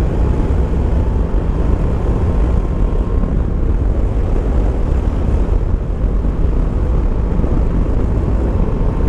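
Yamaha Tracer 9 GT motorcycle at steady cruising speed: wind rushing over the helmet camera's microphone over the three-cylinder engine's even running, with a faint steady whine.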